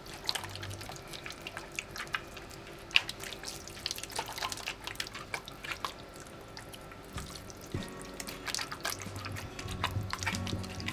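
Wet squelching and smacking of blood-and-rice morcilla filling being squeezed by hand into a sausage casing: irregular sticky slaps and squishes, several a second.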